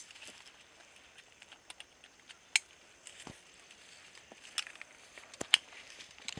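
Faint rustling and crackling of dry corn leaves and clothing, broken by a few sharp clicks, the loudest about two and a half and five and a half seconds in.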